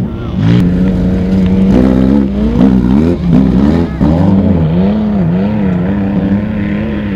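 Off-road race vehicles' engines running at high revs, their pitch swinging up and down repeatedly as the throttle is worked through loose sand.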